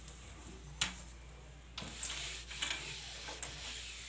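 A cloth scrubbing a wooden door, with a rubbing hiss and several sharp knocks against the wood. The loudest knock comes about a second in.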